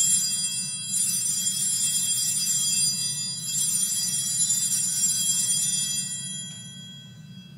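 Altar bells ringing out in rings that are struck again about a second and three seconds in, then die away near the end, over a low steady hum. These are the consecration bells marking the elevation of the chalice.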